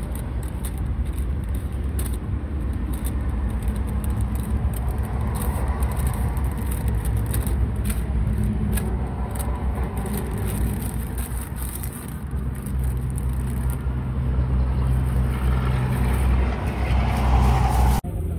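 Road traffic with a vehicle engine running close by. The low engine hum grows louder over the last few seconds, then cuts off suddenly near the end.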